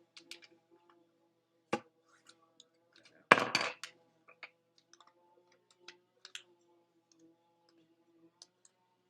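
A sheet of paper being folded and creased by hand, with light taps and clicks. There is one loud, half-second scraping rustle about three and a half seconds in as the fold is pressed down.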